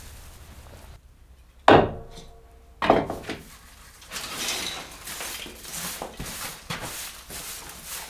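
Two sharp metallic clanks about a second apart, each ringing briefly, followed by a run of scraping and rustling handling noises.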